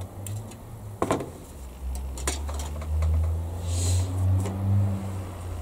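Side cutters snipping a plastic kit part off its sprue with a sharp click about a second in, followed by lighter clicks and taps of plastic and tools on the bench, over a low steady hum.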